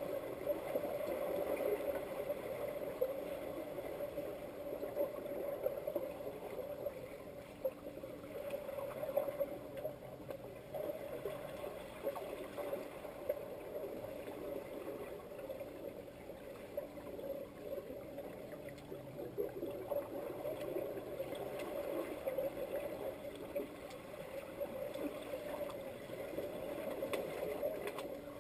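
Swimming-pool water heard from underwater: a muffled, steady crackling wash with bubbling and small clicks from swimmers in fins kicking and churning the water near the surface.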